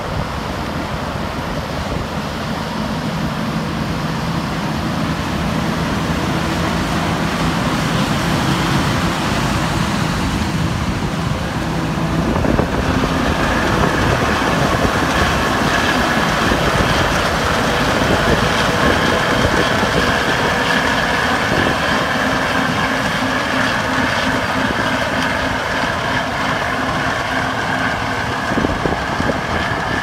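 Combine harvester running steadily, with engine and machinery noise and several held tones. About twelve seconds in, a higher whine joins and carries on.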